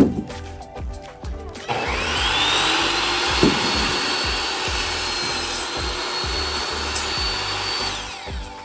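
An electric power saw starts about two seconds in, its whine rising quickly to speed, and runs steadily through a test cut in wood for about six seconds before winding down near the end. Background music with a steady beat plays underneath.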